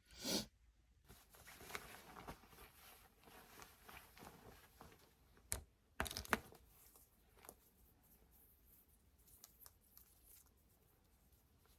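Faint rustling of something being handled, with a few sharp clicks a little past halfway.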